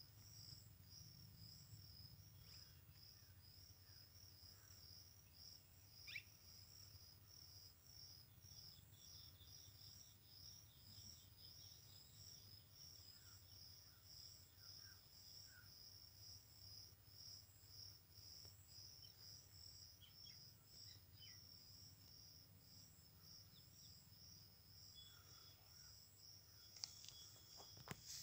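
Faint insect chirping, an even rhythm of a few short chirps a second that keeps going steadily, over a soft low rumble.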